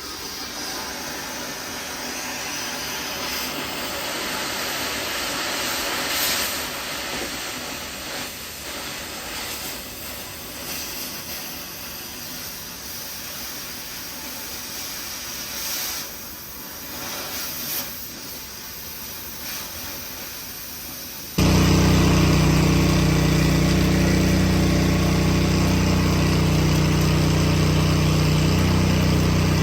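A steady hissing noise for about twenty seconds, then an abrupt cut to an engine running steadily and loudly at a constant speed.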